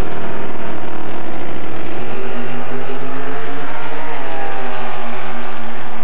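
Loud drag racing car engine at high revs as the car launches and runs down the strip, its pitch gliding upward about four seconds in.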